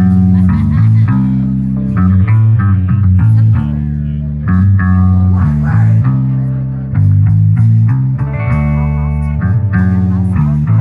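Live rock band playing an instrumental passage: electric bass and guitars over drums, with no singing.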